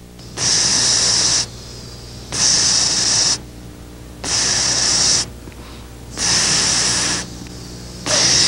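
Air pump hissing in regular strokes, each hiss about a second long and coming about every two seconds: four full strokes, with a fifth starting near the end.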